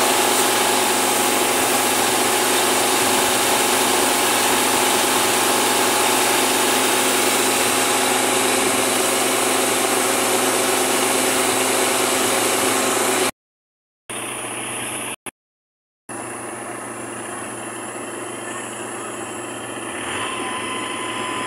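Combine harvesters running steadily at work while unloading threshed rice through their augers. The sound drops out twice briefly about two-thirds of the way through, then comes back quieter.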